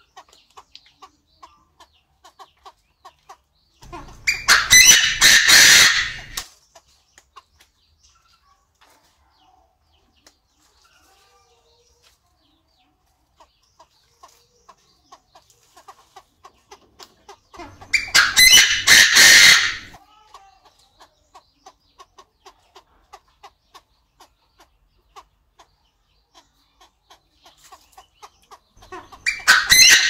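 Chinese francolin giving its loud, harsh multi-note call three times, each about two seconds long, the last one starting near the end. Between the calls there is faint ticking, about three ticks a second.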